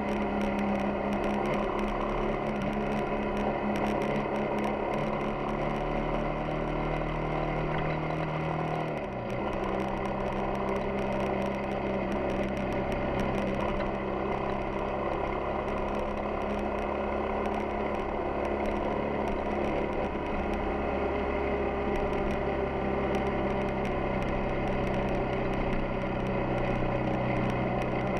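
Yamaha XTZ 250 Ténéré's single-cylinder four-stroke engine running steadily under way, over a steady rush of wind and road noise. About nine seconds in the engine note briefly dips and settles at a different pitch, as in a gear change.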